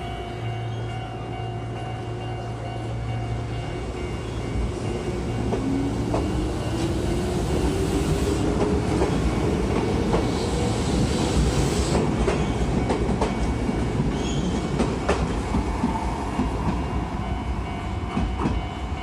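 Chichibu Railway 5000 series electric train pulling away, its motor whine rising in pitch as it gathers speed, with the wheels clicking rhythmically over rail joints.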